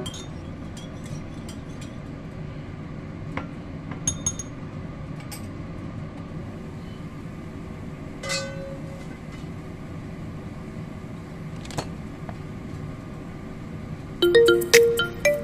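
A few light clinks of a spoon and utensils against a ceramic bowl and a stainless steel pan, one ringing metallic clink about eight seconds in, over a steady low hiss. Light tinkling background music comes in near the end.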